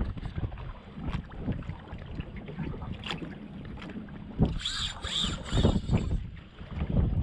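Wind buffeting the microphone on a small boat, with a sharp knock about halfway through followed by two short high-pitched squeals.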